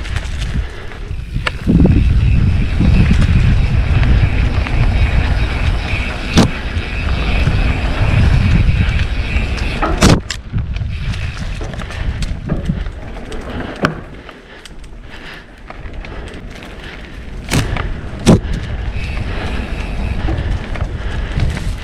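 Mountain bike riding down a dirt trail: a heavy wind rumble on the camera microphone and tyre noise on dirt, broken by sharp knocks and clatters of the bike going over bumps. A high steady buzz runs for several seconds near the start.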